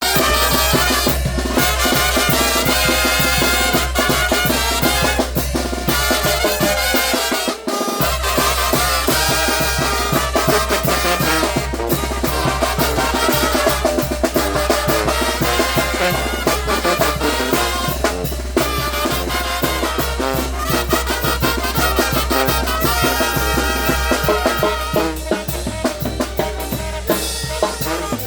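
A Mexican banda, a brass-and-percussion band, playing an up-tempo piece with brass over drums and a steady bass line. The bass drops out for a moment about eight seconds in.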